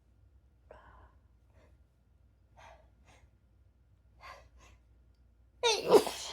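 A woman's faint breaths three times, then near the end a loud, sudden sneeze, brought on by a tickling nose.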